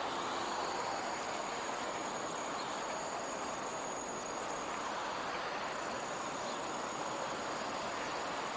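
Steady hiss with a thin, high-pitched whine over it; the whine drops out for a moment about five seconds in.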